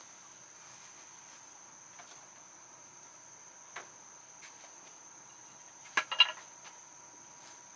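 Steady high-pitched insect chirring, with a single light click near four seconds and a brief clatter of a few sharp knocks about six seconds in.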